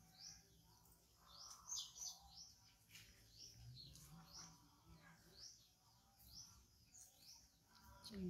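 Near silence, with a small bird chirping faintly in the background: a short rising chirp repeated over and over, roughly once a second.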